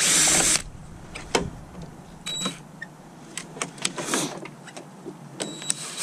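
A cordless drill/driver runs in a short burst of about half a second, backing out a screw. This is followed by scattered light clicks and knocks of screws and small metal parts being handled.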